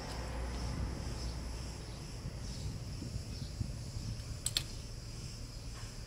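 Insects chirping faintly in the background over a steady low hum, with a pair of sharp light clicks about four and a half seconds in.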